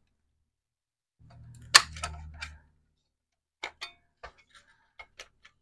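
Sharp metallic clicks and light taps as the sheet-metal lid is worked off the RF modulator's shield can on a TRS-80 Color Computer 2 circuit board. A brief low rumble of handling comes about a second in, with the loudest click near two seconds in, then scattered smaller clicks.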